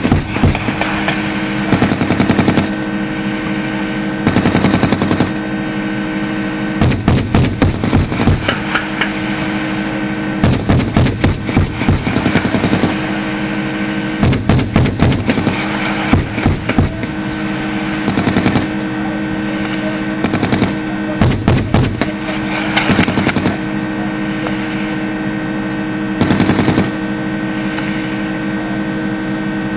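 A LAV-25 light armored vehicle's turret gun firing repeated short bursts of several rounds each. The shots sound over a steady drone from the running vehicle.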